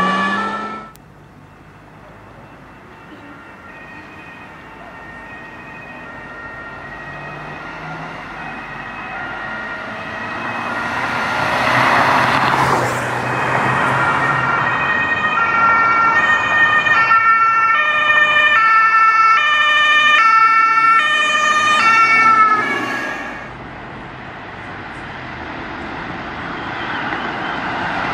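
German emergency-vehicle two-tone siren (Martinshorn) alternating between a high and a low note, growing louder as the vehicles approach, with the rush of a vehicle passing partway through. Near the end the siren stops and gives way to the rising noise of a car approaching.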